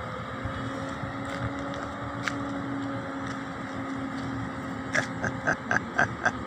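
A steady low mechanical hum, with a quick run of about seven short clicks, roughly four a second, in the last second and a half.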